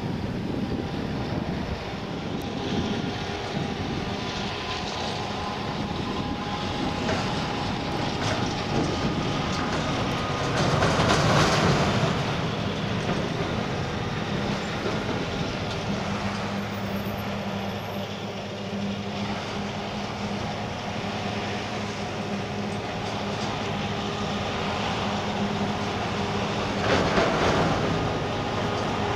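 Diesel engines of John Deere farm machinery at work in a silage harvest, running steadily with a constant hum and whine. The noise swells twice, about a third of the way in and near the end, as the machinery comes closer.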